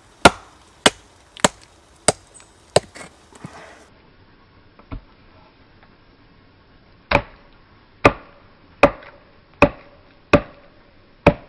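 Batoning: a round wooden club strikes the spine of the small fixed-blade Heidi Production Knife No.1 to drive it through a split piece of wood, giving sharp wooden knocks. There is a run of about five quick blows, a pause of a few seconds, then six more, roughly one every three-quarters of a second.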